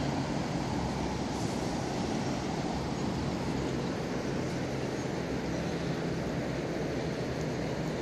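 Steady rushing of the Panjkora River's current over its stony bed, with wind noise on the microphone.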